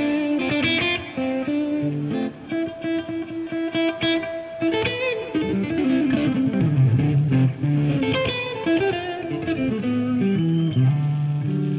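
Electric guitar, a Les Paul-style solid-body, playing a slow blues lead line of single notes, some held and some bent up in pitch.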